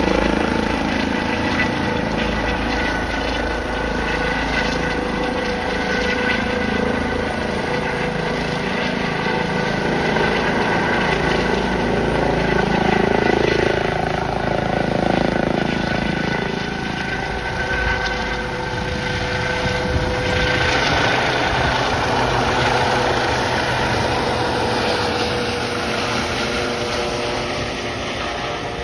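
Air ambulance helicopter climbing away overhead: steady turbine whine with a few held tones over the rush of the rotor.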